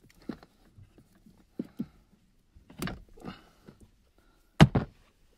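Handling noises of vinyl electrical tape being pulled off the roll in short rips and wrapped around a power wire, about five separate scrapes and rips. Near the end comes the loudest, a sharp thump of a hand against the car's carpeted interior panel.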